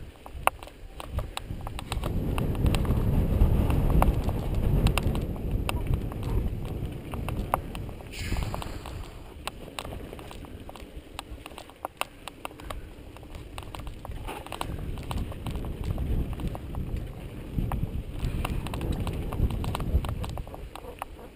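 Mountain bike rolling down a dirt singletrack, recorded by a camera on the rider: a rumble of tyres and wind on the microphone, with constant sharp rattling clicks from the bike and camera mount jolting over bumps. The rumble swells for several seconds about two seconds in, then eases.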